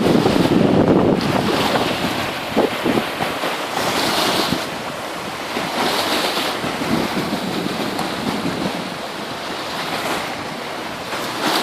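Sea waves washing in, with wind buffeting the microphone, the rumble strongest at the start; swells of hiss from the water about four and six seconds in.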